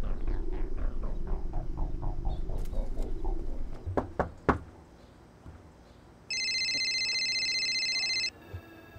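A low rumble with a quick run of falling chirps fades out over the first few seconds. Two sharp thumps follow about four seconds in. Then a mobile phone rings for about two seconds: a steady, high electronic ringtone that cuts off abruptly.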